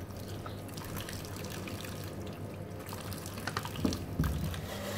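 Tap water running into a steel sink over carrots as hands rub and rinse them, with a couple of light knocks about three and a half to four seconds in.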